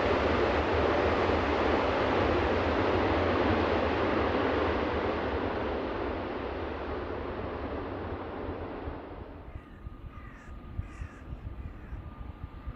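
Jet noise from a landing JAL Airbus A350-941 airliner, loud and fading steadily away. About nine seconds in it drops to a quieter background in which crows caw a couple of times over a faint steady tone.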